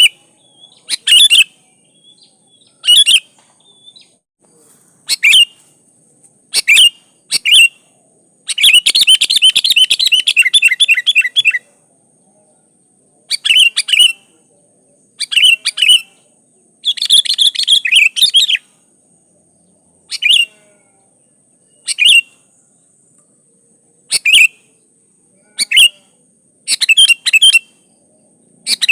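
Sooty-headed bulbul (kutilang) calling: short bursts of chirping notes every second or two, with a longer run of rapid chattering notes about nine seconds in and another around seventeen seconds.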